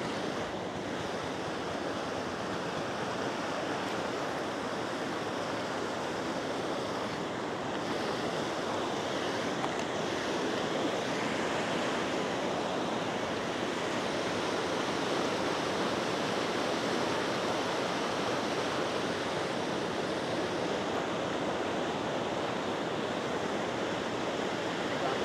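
Floodwater rushing steadily.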